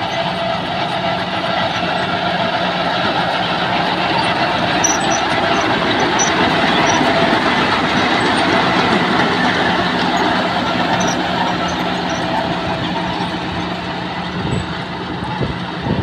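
A 1960-vintage bulldozer running: a steady engine note under a dense mechanical noise, swelling slightly in the middle.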